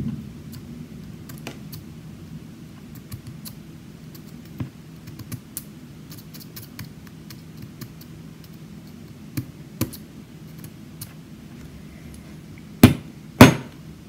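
Small metal clicks and scrapes from a challenge lock being taken apart, its pins, springs and cylinder worked by hand with a slim tool. Near the end come two sharp, loud knocks.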